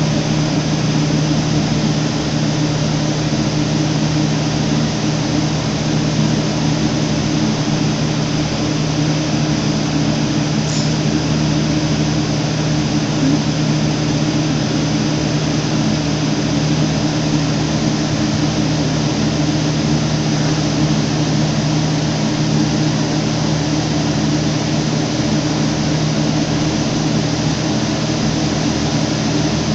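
Steady machine drone: a low, even hum under a constant hiss, with no change in pitch or level.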